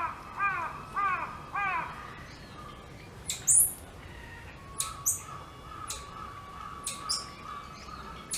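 A crow cawing, four caws in quick succession that stop about two seconds in, then a few short, sharp high chirps, the loudest about three and a half seconds in.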